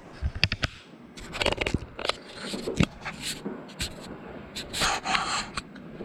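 Close-up handling of a model airplane: irregular clicks and knocks with short rubbing scrapes, busiest in a cluster of scraping near the end.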